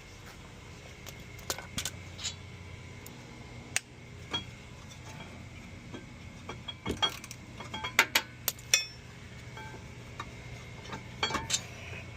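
Scattered metallic clinks and knocks of hand tools and brake parts while a rear brake caliper bracket is unbolted, with a quick run of sharp clicks about seven to nine seconds in and more near the end, over a low steady hum.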